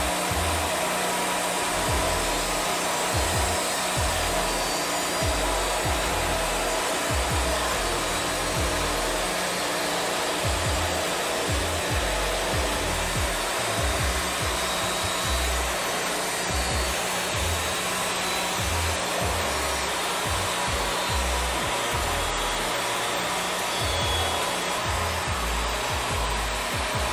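Wood-Mizer portable bandsaw sawmill running steadily, its band blade cutting lengthwise through a cherry log to make slabs.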